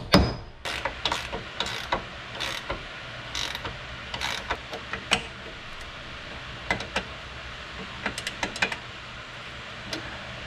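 A last hammer blow on a carriage bolt driven through a wooden barn post, then scattered metal clicks and clinks as the nut is fitted and tightened on the bolt with a wrench.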